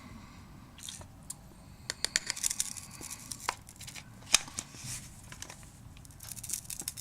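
Hand tools clicking and scraping on the thin aluminium rim of a broken, jammed lens filter: scattered small metallic clicks and light scrapes, the sharpest about four seconds in.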